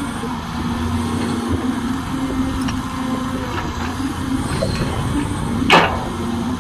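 Caterpillar hydraulic excavator's diesel engine running steadily under load as it digs, swings and dumps soil, with one sharp knock near the end.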